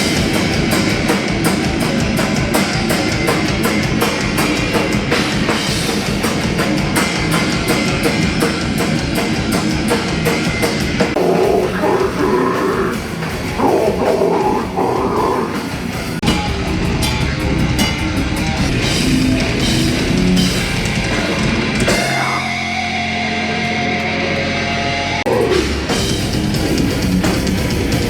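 Hardcore/heavy metal music: a pounding drum kit and distorted guitars played fast, with a break about three-quarters of the way through where the drums drop out under held chords before crashing back in.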